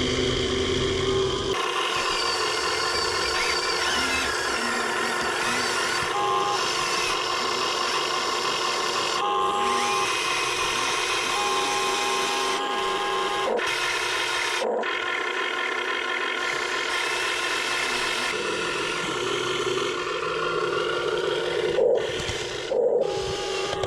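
Huina 1580 RC excavator's small electric motors and gearboxes whining steadily, the pitch and mix of tones shifting several times as different functions are driven. Two short knocks near the end.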